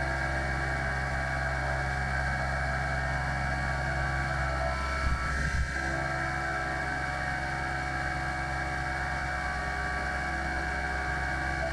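Iscar face mill on a Mitsubishi horizontal mill facing an aluminum forging under flood coolant: a steady machining drone with several steady whining tones from the spindle and cutter, and coolant spraying. About five seconds in, the sound briefly wavers and some of the tones shift.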